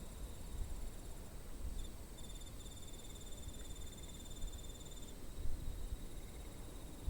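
Insects chirping in high, rapidly pulsed trills. The strongest run starts about two and a half seconds in and lasts about two and a half seconds, over a steady low rumble.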